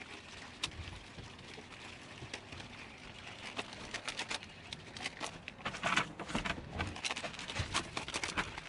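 Fishing line being wound by hand around a plastic bottle: light clicks and crinkles from the bottle and line, growing denser and louder about halfway through.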